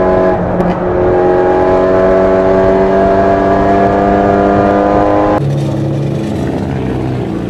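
Hyundai Genesis Coupe race car's engine heard from inside the cabin, pulling hard: an upshift about half a second in drops the note, then the pitch climbs steadily as the car accelerates. Near the end the sound cuts to a lower, slower engine note as the car rolls at low speed.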